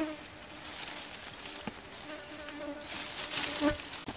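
An insect buzzing in a steady low hum, over the rustle of leafy branches being pulled and handled, with a sharp snap at the start and another near the end.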